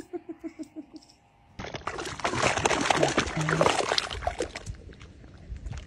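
A dog splashing and digging in a muddy puddle, with wet mud and water slapping and splattering. The splashing starts suddenly about a second and a half in, is loudest in the middle and fades toward the end, after a faint, evenly pulsing sound at the start.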